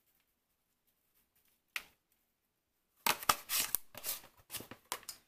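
Near silence at first, then a single short rustle. From about three seconds in comes a quick run of loud, irregular rattling and rustling as seasoning containers are picked up, opened and shaken over the ribs.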